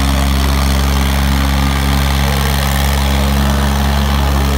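Diesel engines of two tractors, a Sonalika DI 750 and a Digitrac PP 43, running hard and steady as they pull against each other in a tug-of-war; the note holds even, with no change in pitch.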